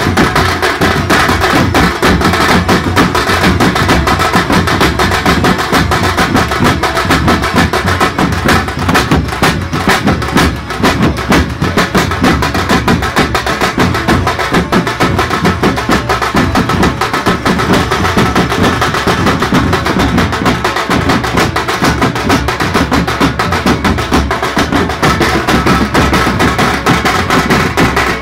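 A band of large double-headed drums beaten with sticks, playing together in a fast, dense rhythm without a break.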